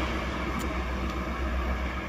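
A train running past with a steady low rumble and rushing noise, slowly growing fainter.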